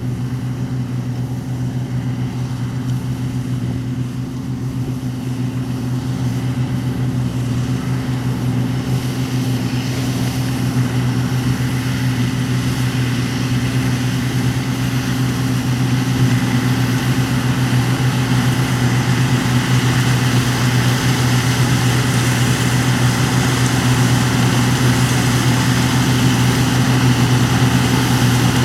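Heavy diesel harvest machinery, a combine harvester or carting tractor, running steadily with a deep, even hum, growing gradually louder and brighter.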